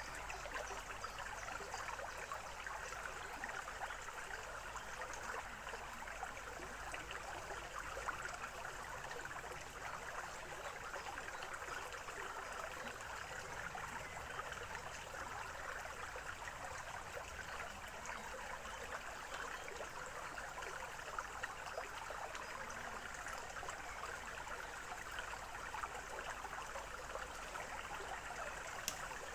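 Small forest stream flowing, a steady trickling, bubbling rush of water.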